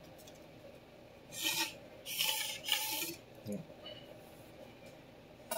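Vintage Clyde Cutlery chef knife's steel edge scraped across a 3,000-grit whetstone in three quick strokes, starting about a second in. The scrape is gritty from excess coarse grit left on the stone by the rinse water.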